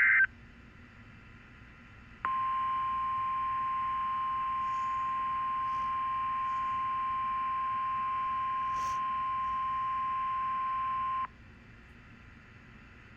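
NOAA Weather Radio weekly test signals. The tail of a loud burst of header data tones cuts off right at the start. After about two seconds of faint hiss, the steady single-pitch 1050 Hz warning alarm tone sounds for about nine seconds, then stops abruptly, leaving faint radio hiss.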